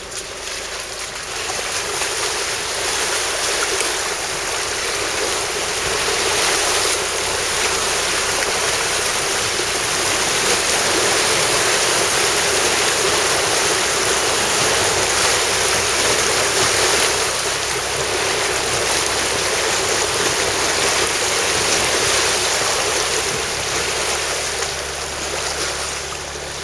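A Land Rover Freelander 2 wading through a long flooded track, water rushing and splashing steadily against its body, with a low engine hum underneath. The rush eases near the end as the car reaches shallower, muddy ground.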